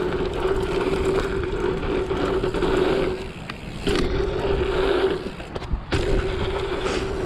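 BMX bike rolling fast over packed-dirt jumps: tyre and riding noise with a steady buzzing hum from the bike that drops out twice, around three and a half and five and a half seconds in, and a couple of brief knocks.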